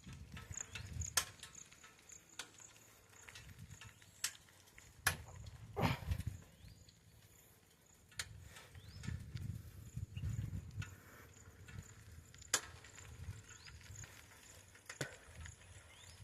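Footsteps on a forest floor: irregular low thumps with sharp cracks and clicks of snapping twigs, over a faint high chirp that repeats evenly in the background.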